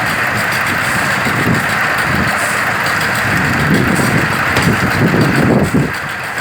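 An engine running steadily, with uneven low rumbling that swells in the second half and eases off just before the end.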